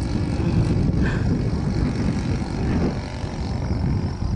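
Saito 1.25 single-cylinder four-stroke glow engine of an RC Citabria droning in flight overhead, partly covered by wind rumbling on the microphone.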